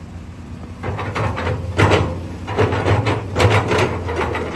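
SANY 21.9-ton crawler excavator's diesel engine running with a steady low hum while the boom rises and the bucket curls. A run of sharp knocks and clanks starts about a second in and goes on for some three seconds.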